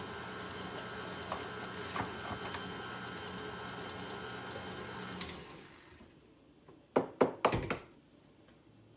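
KitchenAid tilt-head stand mixer running steadily, blending melted butter and brown sugar, then switched off about five seconds in. A few sharp knocks follow about two seconds later.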